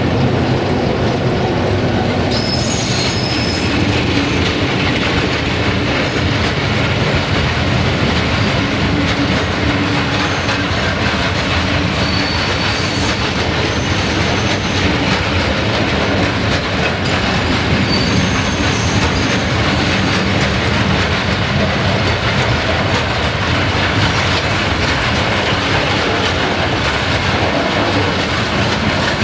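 Long freight train of tank wagons behind an LDE2100 (060-DA) diesel-electric locomotive rolling past close by: a loud, steady rumble of wheels on rails, with brief high wheel squeals a few times.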